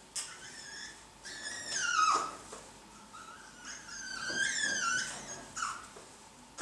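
Blue-and-yellow macaws calling while mating: two drawn-out calls that waver and bend in pitch, about a second in and again around four seconds in, the first the louder. Short sharp cries come at the start and near the end.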